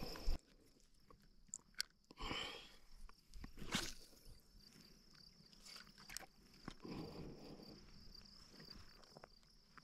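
Faint scattered clicks and short rustles over a steady, high-pitched insect drone.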